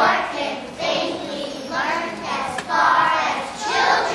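Children's voices performing on stage, singing mixed with spoken lines, with a few notes held longer.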